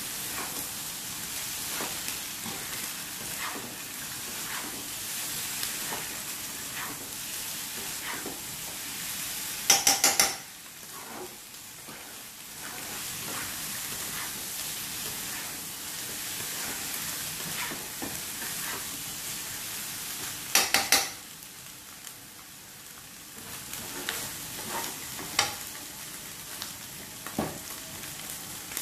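Tofu and egg sizzling in a stone-coated wok while a spatula stirs and scrapes through them. Twice, about ten seconds apart, a quick run of three or four sharp knocks stands out above the sizzle.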